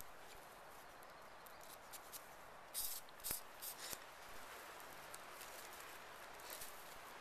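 Sweetgrass and palmetto strips rustling and scraping as they are worked through the stitches of a coiled basket: a few short scratchy bursts about three seconds in and a couple more later, over a faint steady hiss.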